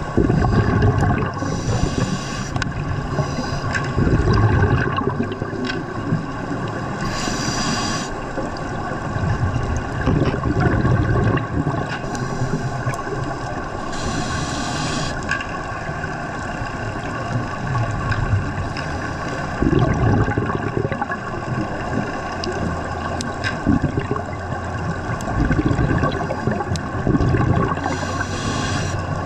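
Underwater scuba sounds: divers' regulator breathing, with short hissing breaths and low rumbling surges of exhaled bubbles every few seconds over a steady hum.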